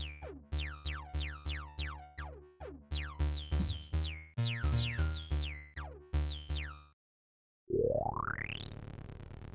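Sampled acid-style synth bass notes from the AXS Synth '202 Acid' set, played repeatedly at about two a second, each with a resonant filter sweep falling quickly as it decays, and the pitch changing now and then. After a brief silence a different sampled synth sound, 'Deep Filter', starts with a rising filter sweep and holds.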